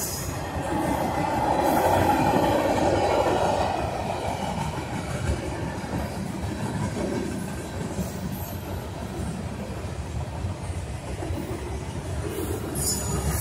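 Freight train of boxcars and tank cars rolling past, steel wheels on the rails making a continuous noise that swells for a few seconds near the start.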